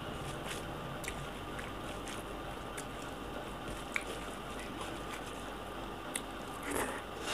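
Fingers mixing cooked rice with dal on a plate by hand: soft, wet squishing with scattered small clicks.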